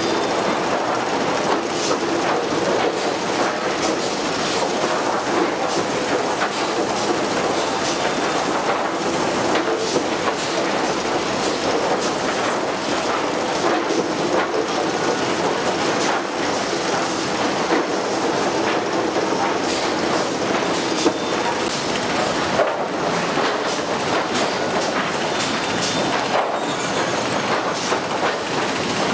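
Sawmill lumber stacking line with its chain-transfer conveyors running: a steady, loud mechanical din full of small clicks and knocks from boards and chains.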